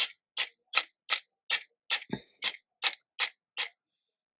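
Fine-mist pump spray bottle being pumped over and over, about ten short hisses at roughly two and a half to three a second, spraying a very fine gold mist onto card.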